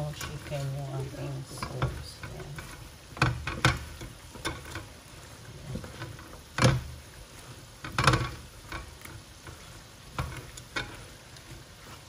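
Chicken wings being stirred and tossed in thick sauce in a speckled nonstick pan, with a low sizzle of frying underneath. A few sharp knocks of the utensil against the pan stand out, the loudest about two-thirds of the way through.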